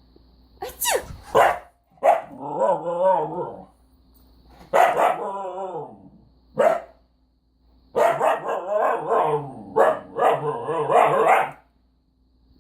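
A person sneezes once about a second in, and a pet dog answers with angry barking in several long, wavering bouts: an upset reaction to the sneeze.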